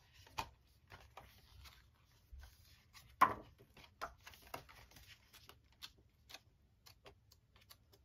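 Pages of a photo book being turned by hand: a scattering of soft paper flicks and light taps, with one louder slap about three seconds in.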